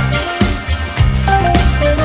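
Background music with a steady drum beat, bass line and short melodic notes.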